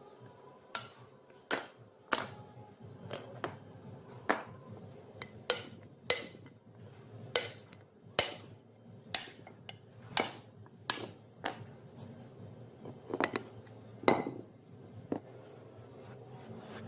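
Metal being struck by hand, a sharp metallic tap with a brief high ring about every three-quarters of a second, around eighteen times, with a low steady hum underneath.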